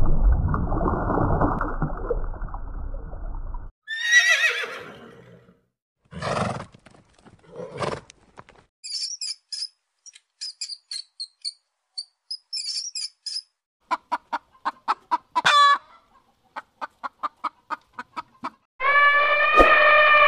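A string of separate animal sounds. A low rushing noise for the first few seconds, then a few short calls. A small rodent squeaking in quick high chirps around the middle. A run of rapid short pitched calls, and from near the end an elephant trumpeting loudly.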